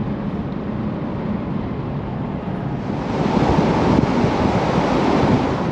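Road and wind noise of a 79 series Toyota LandCruiser driving at highway speed. From about three seconds in it turns into a louder, hissier rush of wind.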